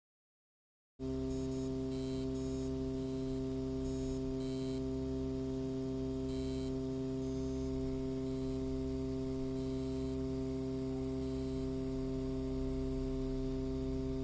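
Steady electrical mains hum from lit fluorescent tube lights, several held tones together. It starts after about a second of silence and cuts off abruptly just at the end, with a few faint short high blips over it in the first half.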